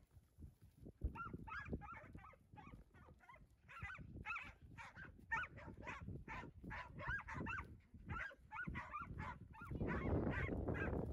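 Cattle-working dogs yipping and barking in quick runs of short, high yelps, several a second, as they drive a bunch of cattle. A louder rushing noise joins near the end.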